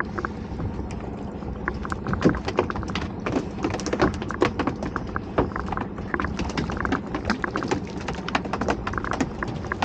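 Freshly caught mackerel flapping and drumming its tail against the boat's wooden thwart and plastic crates, a run of quick, irregular taps, over a low steady hum.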